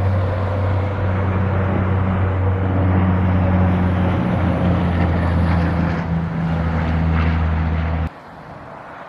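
An engine running steadily, a constant low hum with a faint rumble over it, that cuts off abruptly about eight seconds in.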